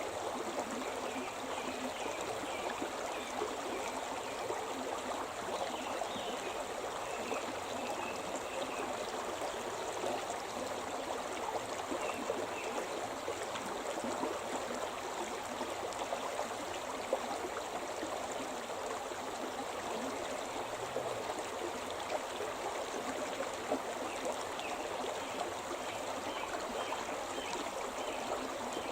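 Shimna River running over rocks: a steady, continuous rush and gurgle of flowing stream water.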